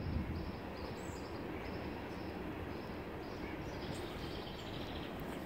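Steady outdoor background noise with faint, high bird chirps repeating through it.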